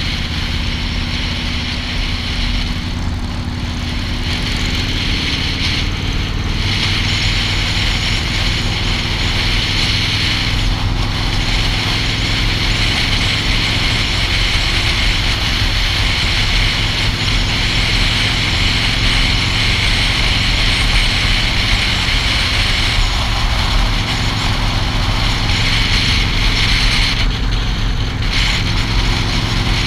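Motorcycle engine running steadily at cruising speed, heard from the rider's seat, with wind and road noise rushing past. The hiss briefly dips a few times.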